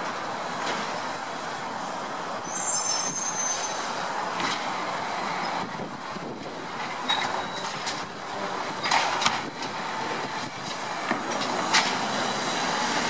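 Mack LEU garbage truck with an Amrep automated side loader running at the curb, its diesel engine and hydraulics making a steady noise. A brief high squeal comes about three seconds in, and sharp bangs come near nine and twelve seconds as carts are dumped into the hopper.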